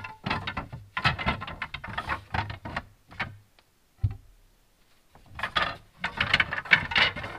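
Wooden bed slats clattering and clacking against each other as they are lifted out of a box and handled, in quick runs of knocks. Past the halfway point a single knock is followed by a lull of about a second, then the clatter starts again.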